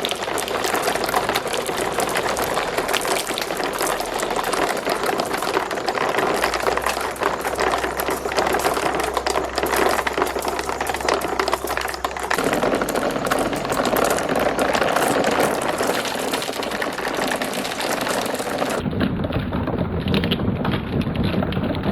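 Many marbles rolling and clattering down a marble run track, a dense continuous rattle of small clicks. About 12 s in the sound shifts, and about 19 s in it turns to a duller, lower rumble as the bright top end drops away.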